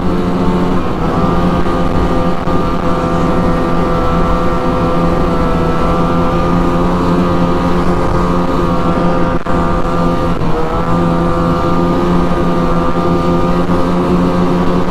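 Ski-Doo MXZ 600 E-TEC snowmobile's two-stroke twin engine running steadily under way. Its pitch rises just after the start, holds, dips briefly about ten seconds in, then climbs back.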